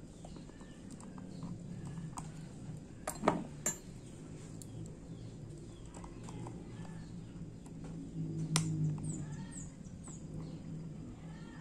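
A few sharp little clicks of small watchmaking tools on a watch movement, twice about three seconds in and once more past the middle. Birds chirp faintly in the background.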